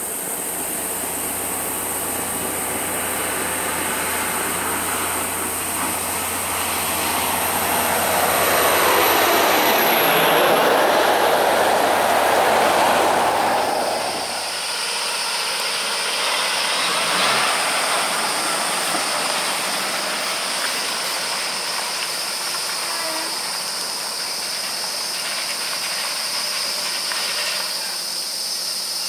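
A road train's diesel engine runs as it drives through floodwater over the road, its wheels throwing spray with a rising hiss that is loudest about ten to thirteen seconds in as it comes past. After a sudden change, insects buzz steadily in high tones over the quieter sound of a truck moving off.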